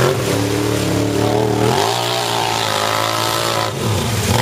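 ATV engines revving hard as the quads churn through deep mud. The engine note climbs about two seconds in, then dips and rises again near the end.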